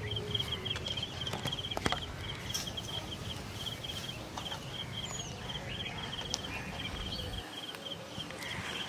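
An insect calling in a steady run of short, evenly spaced pulses, several a second, on one high pitch. Under it is a low outdoor rumble that drops away near the end, with a few sharp clicks.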